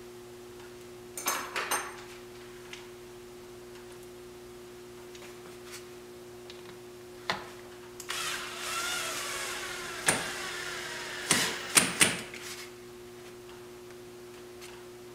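Cordless drill/driver running for about two seconds, driving a screw through a small plastic bracket into aluminium RV siding. Sharp clicks and knocks from handling the bracket and driver come before and just after.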